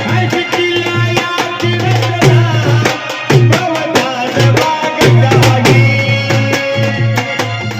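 Indian folk music with no singing: hand drums of the tabla kind keep a fast, steady rhythm with a strong bass stroke, under a held melodic instrument line.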